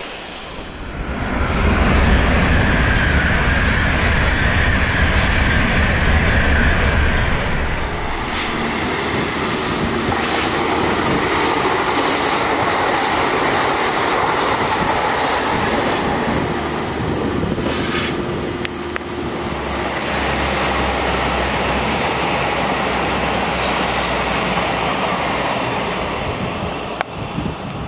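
Trains passing at speed, one after another: a fast train rushes past loudly from about a second in, then further trains run by with a steady rumble and a few sharp clicks.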